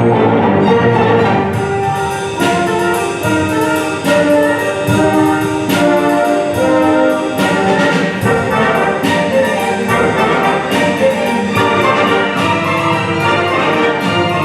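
Symphony orchestra playing live, the brass section prominent over a steady beat.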